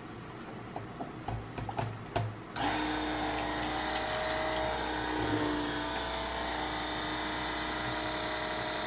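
A few light knocks as a handheld stick blender is set into a plastic jug, then the blender switches on about two and a half seconds in and runs with a steady whine, mixing oils and lye solution into cold-process soap batter.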